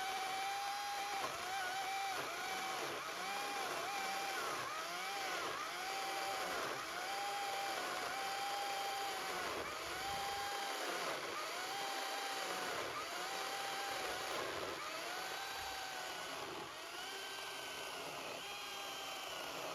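Ego 18-inch battery-powered electric chainsaw ripping lengthwise along the grain of an oak log under heavy load. Its motor whine sags in pitch and recovers over and over as the cross-cut chain bogs in the cut.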